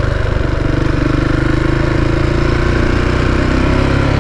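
KTM 690 Enduro's single-cylinder engine running steadily while the motorcycle rides along a dirt road.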